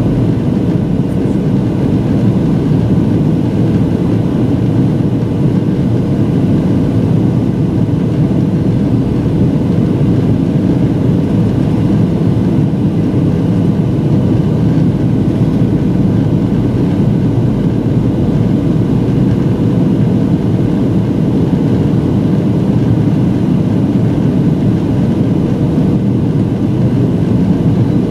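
Cabin noise inside a Southwest Boeing 737 in flight: the jet engines and the air rushing past the fuselage make a steady, loud, low rushing noise with a faint even hum running through it.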